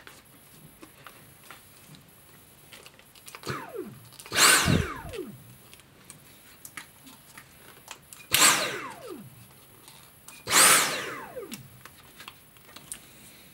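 Dyson V7 handheld vacuum's motor switched on in three short bursts, each a sharp start-up whine that falls in pitch as the motor winds down. A fainter burst comes just before the first.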